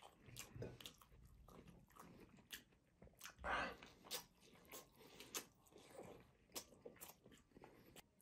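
Quiet, close-miked chewing of grilled kebab, with scattered mouth clicks and a louder bite about three and a half seconds in.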